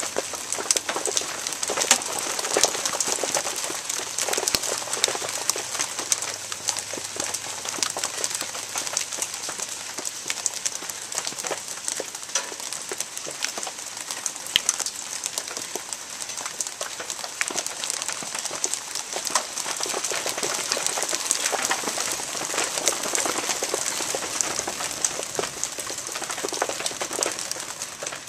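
Hail falling and striking hard surfaces: a dense, steady clatter of countless small impacts.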